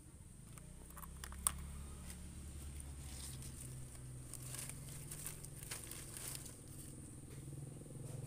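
Leafy plant cuttings and twigs rustling and crackling as they are handled and bark is scraped, with a sharp click about a second and a half in. A low steady hum runs underneath.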